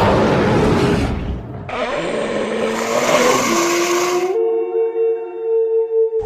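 Edited creature-roar sound effects for a chupacabra, a run of separate cries. A harsh, deep roar fades out, then a rough snarling cry with some sliding pitch follows. A long, steady, pitched cry is then held for about two seconds before the next roar cuts in.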